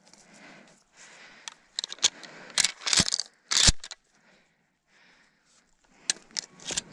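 Footsteps crunching and crackling on dry leaves, twigs and dirt of a forest trail, in uneven clusters, with two heavier knocks about three seconds in.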